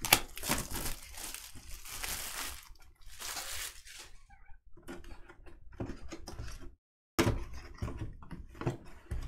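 Packaging being handled on a cardboard collectible box: rustling and scraping in the first few seconds, then scattered light knocks and taps as the box is turned and opened. The sound drops out completely for a moment about two-thirds of the way through.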